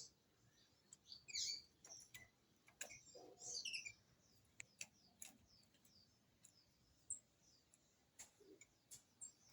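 Green-winged saltator (trinca-ferro) giving short, faint, scattered chirps, mixed with irregular sharp clicks and taps.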